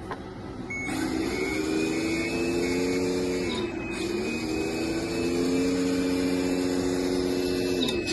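Electric hydraulic pump of a 1/14-scale RC wheel loader running in two spells of a few seconds each: a steady hum with a thin high whine over it. The pitch sags at the end of the first spell, and the second spell cuts off near the end.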